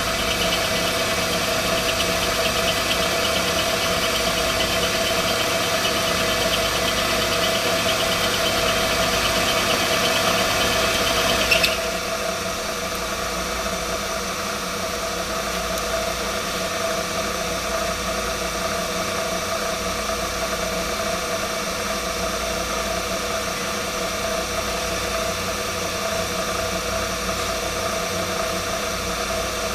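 Vertical milling machine running, its end mill cutting a slot in a steel angle guide rail, with a steady machine tone under the rough noise of the cut. About twelve seconds in the sound changes suddenly and drops a little, leaving a steady running machine.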